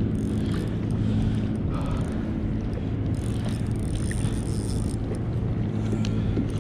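Steady low hum of a boat motor running, with wind and water noise around it.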